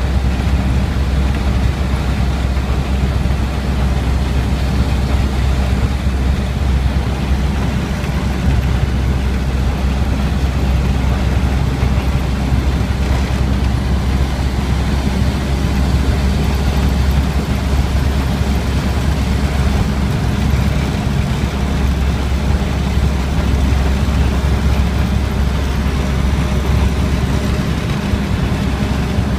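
1931 Ford truck's four-cylinder engine running steadily at road speed, with heavy wind and road noise.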